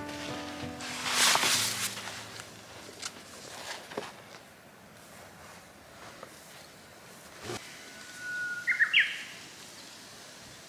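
Rural outdoor ambience. About a second in there is a loud rustle of a large black sheet being handled, then a few light knocks. Near the end a bird sings once: a held whistle that breaks into a quick, sharply rising flourish.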